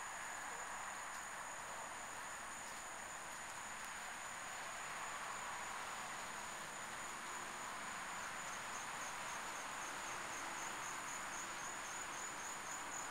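Faint steady hiss with a thin, high-pitched whine over it; about two-thirds of the way through, the whine turns into a quick, even pulsing.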